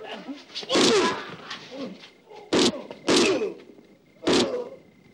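Film fistfight sound effects: about four heavy punch and thump impacts a second or so apart, mixed with the fighters' grunts and cries.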